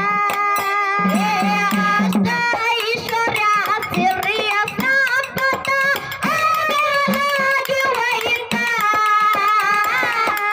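A woman singing a Kannada dollina pada devotional folk song, held long notes over a steady beat of small hand cymbals (taala) clashing in rhythm, with a drum thumping near the start and end.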